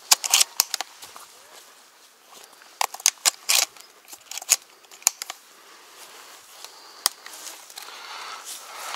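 Shotgun being loaded by hand: cartridges pushed into the magazine one after another with sharp metallic clicks, in a quick cluster at the start, a denser run about three seconds in, then single clicks. Dry leaves rustle underfoot, and the hunter starts walking near the end.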